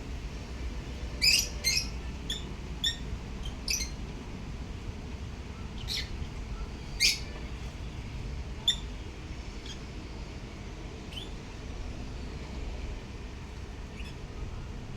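Pet lovebirds giving short, sharp, high chirps. Several come in quick succession in the first half, then a few scattered calls, over a steady low background rumble.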